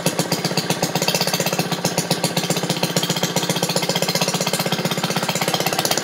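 Maytag washing machine's small two-stroke gasoline engine running steadily with a rapid, even popping exhaust, under light load with the agitator switched off.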